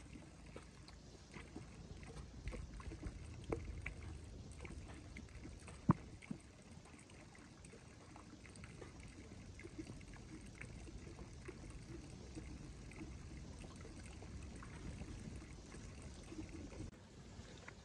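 Water sloshing and trickling as it is disturbed by hand or by wading, with small scattered clicks and one sharper knock about six seconds in.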